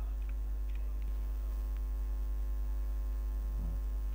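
Steady electrical mains hum: a strong low drone with a ladder of fainter steady tones above it.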